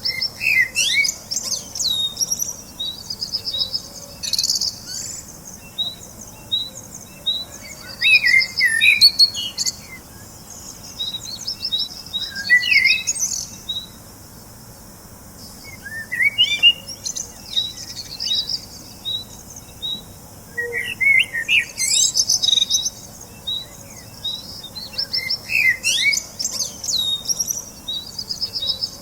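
Birds chirping and singing: a steady run of short, high repeated chirps, with bursts of fuller warbling song every few seconds.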